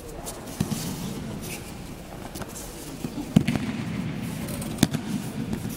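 Sharp slaps of aikido falls and landings on the mats: three loud ones, about half a second in, past three seconds and near five seconds, with a few fainter ones between, over the low rumble of a large hall.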